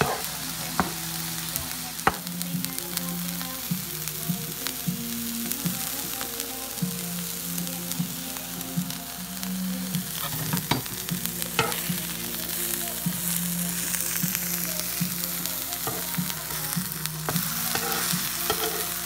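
Vegetables and zucchini slices sizzling steadily on a hot flat-top griddle, with scattered sharp clicks of a metal spatula against the griddle.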